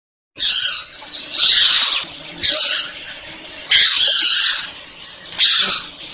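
A wild animal giving five harsh, hissing, high-pitched calls, each well under a second long and spaced about a second or more apart, beginning after a brief silence.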